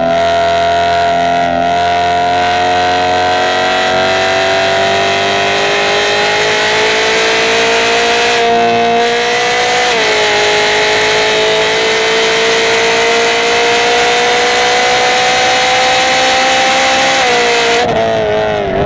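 A car's engine at sustained throttle on a racetrack, heard on board with wind and road noise: the pitch climbs steadily, drops sharply at an upshift about ten seconds in, climbs again, then falls near the end as the driver lifts off.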